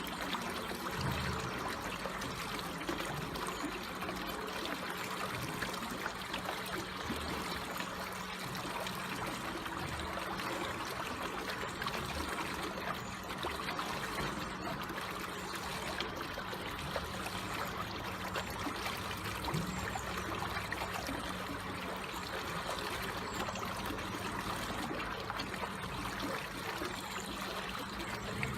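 Water flowing slowly and steadily with a gentle trickle, an even, unbroken rush.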